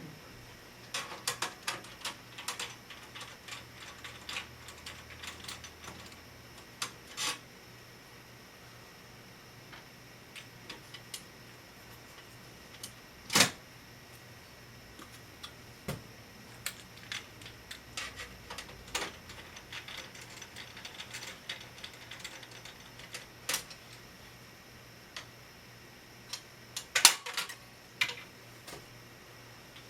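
Scattered clicks, taps and small clatters of a screwdriver, screws and metal parts as an old AT computer is taken apart. A sharper knock comes a little before halfway, and a burst of clatter comes near the end.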